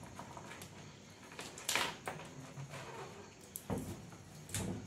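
Insulating tape being peeled off the winding of a small power transformer: three short scratchy tearing pulls, the loudest a little under two seconds in and two more near the end, with light handling of the part in between.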